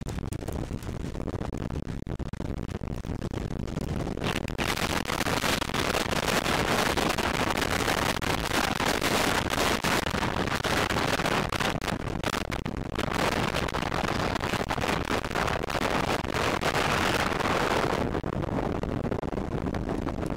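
Storm-force wind gusting across the microphone: a loud, rushing, rumbling noise that strengthens about four seconds in, dips briefly past the middle, and eases near the end.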